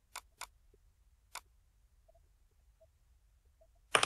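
Three sharp computer mouse clicks in the first second and a half, then a louder, short noisy thump near the end.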